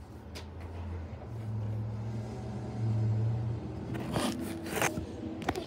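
Handling noise of a phone being picked up and moved, with scraping and rustling about four seconds in and a few clicks near the end, over a low steady hum that swells and fades.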